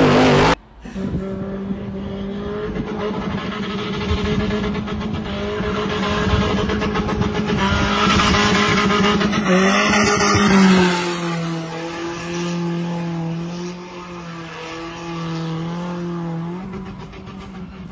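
Pickup truck engine held at steady high revs while the tyres slide on wet asphalt as it drifts. The engine note drops slightly about ten seconds in, holds there, and falls away near the end. A loud burst of vehicle and gravel noise from a cut-off clip fills the first half second.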